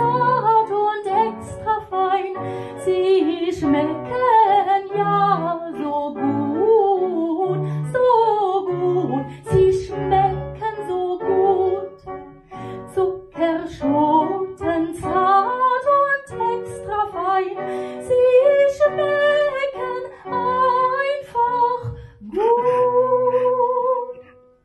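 A woman singing a song over instrumental backing with a plucked bass line, ending on one long held note near the end.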